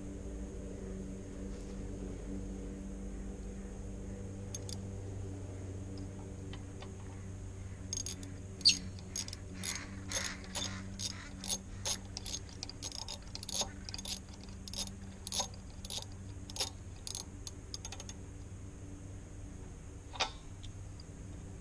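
Hand tools clicking on a lawnmower engine: a run of sharp metallic clicks about two a second through the middle, and one more near the end, over a steady low hum.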